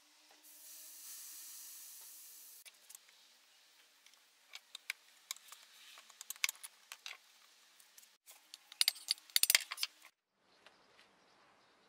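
Air hissing out of a pneumatic wheel's tyre valve for about two seconds as the tyre is deflated. Then scattered clicks and clinks of a hand tool against the steel rim as the tyre is levered off, with the loudest metallic clinks near the end.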